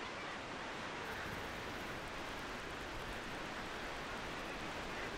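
Steady, even rushing ambient noise with no bird calls standing out.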